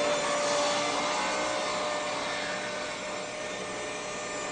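Table saw running and ripping a narrow strip of wood, a steady whine over the cutting noise, slowly getting quieter as the cut goes on.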